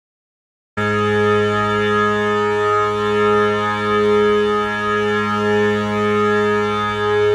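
Silence, then about three-quarters of a second in a music soundtrack starts: one steady held chord that drones on without a beat.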